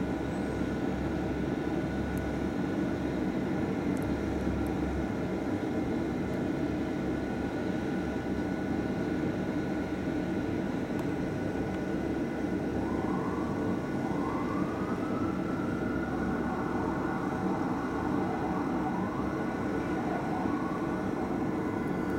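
Steady city traffic noise, with a fire engine's siren wailing faintly from about halfway through, rising and falling several times.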